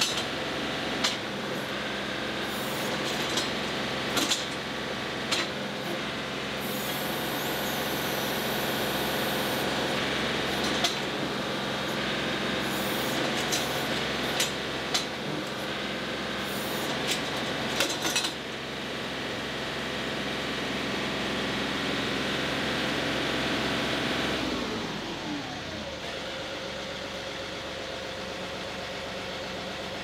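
A John Deere 2038R's three-cylinder diesel runs steadily at raised throttle, with clicks, knocks and a few seconds of hissing as the backhoe controls are worked. About 25 s in it is throttled back and settles to a lower idle, still running. It no longer stalls during backhoe use, the sign that the bad neutral safety switch has been fixed by the replacement.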